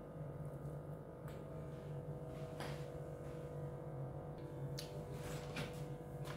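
Steady low electrical hum of room tone, with a few faint clicks and rustles of handling scattered through it.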